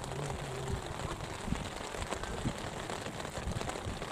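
Rain falling on an umbrella just above the microphone: a steady hiss dotted with many small, irregular drop ticks.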